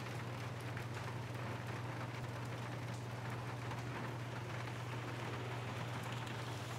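Steady background hiss with a constant low hum underneath and faint scattered ticks: room tone.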